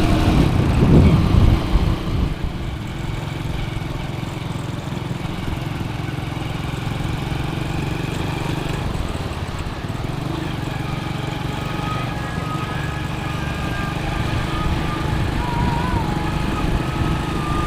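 Small four-stroke single-cylinder Honda underbone motorcycle running at a steady cruise while being ridden, with wind and road noise on the microphone.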